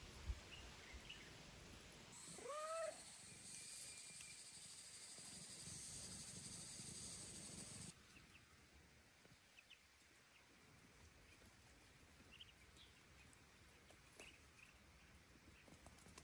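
A cat meows once, a short call that rises and then falls in pitch, about two and a half seconds in. Faint, scattered duckling peeps sound around it, over a steady high hiss that cuts off suddenly about eight seconds in.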